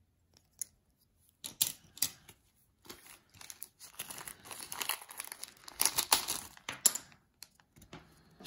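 A printed foil booster-pack wrapper being torn open and crinkled by hand, irregular crackling and ripping for about six seconds, loudest about two thirds of the way through, after a single faint click near the start.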